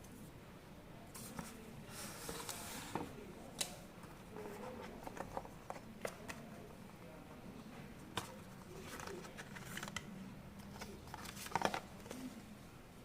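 Hands unboxing a tablet: cardboard box and plastic packaging rustling and scraping, with scattered clicks and taps, busiest about two seconds in and again near the end.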